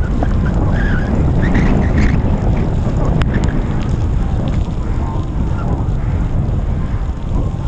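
Heavy wind buffeting the helmet camera's microphone as a bicycle speeds downhill on a wet road in wind and rain, a loud, steady low rumble. A single brief click about three seconds in.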